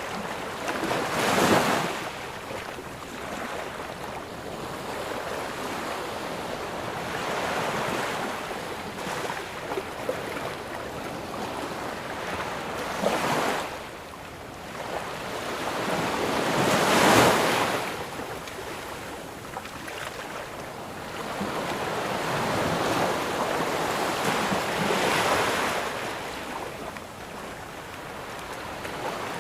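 Ocean waves breaking on a sandy beach: a steady wash of surf that swells into a louder break four times, the strongest about a second and a half in and again at about 17 seconds.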